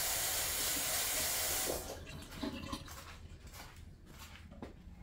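Water running steadily from a kitchen tap, shut off abruptly about two seconds in. A few faint clicks follow as a fork comes to the baking pan.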